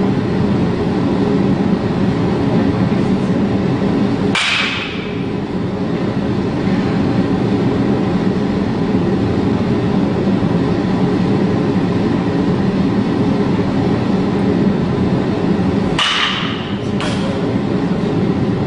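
A baseball bat striking a pitched ball twice, each a sharp crack with a short metallic ring, about twelve seconds apart, with a lighter knock a second after the second hit. Under it runs a steady loud low rumble.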